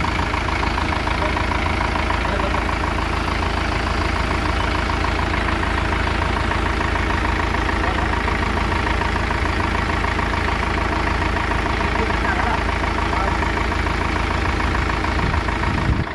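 Mahindra Yuvo Tech+ 575 tractor's diesel engine idling steadily with an even, fast ticking beat, with a brief thump right at the end.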